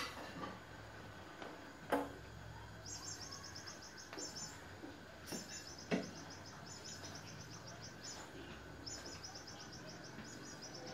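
Kitten playing with a toy mouse on a wooden parquet floor: a few sharp knocks and thumps of paws and toy on the wood, loudest at the start and about two seconds in. From about three seconds in, high bird-like chirping comes in short runs of quick notes, over and over.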